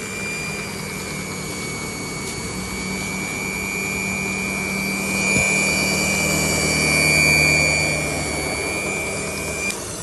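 A small electric motor running steadily with a high-pitched whine, swelling slightly in the second half and cutting off shortly before the end.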